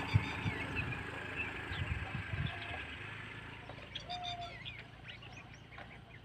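A private bus's diesel engine running low and fading away over the first three seconds, with a sharp click just at the start. Birds chirp in short calls through the second half.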